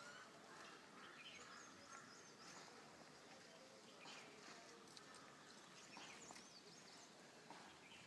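Near silence: faint outdoor ambience with a few small high bird chirps and occasional faint ticks.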